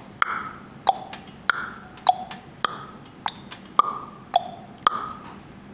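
A regular series of about nine sharp mouth-made clicks, one every half second or so, each with a short hollow pitched ring that alternates between a lower and a higher note.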